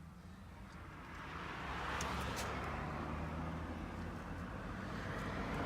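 Road vehicle noise: a low steady hum with a hiss of traffic that swells after about a second, with a couple of faint clicks.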